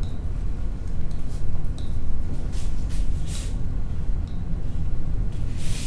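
Steady low rumble of classroom room noise, with a few brief soft hissy scrapes, the strongest about three seconds in and just before the end.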